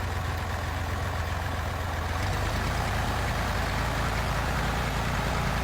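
Massey Ferguson 308 loader tractor's engine running steadily; about two seconds in its note drops lower and grows slightly louder.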